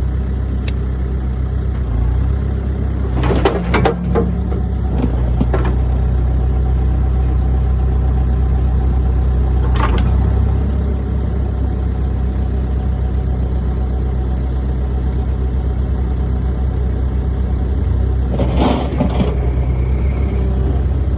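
New Holland B95BTC backhoe's diesel engine running steadily at idle, with a few short sharp knocks or clanks a few seconds in, about halfway through and near the end.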